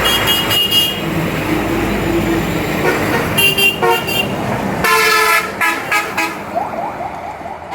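Vehicle horns honking in three bouts of short blasts over steady background noise.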